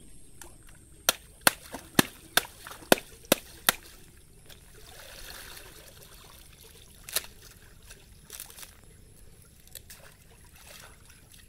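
A wet bundle of jute fibre slapped down on shallow muddy water while it is washed: seven sharp slaps at about two a second, then water sloshing and dripping off the fibre, with one more slap past the middle.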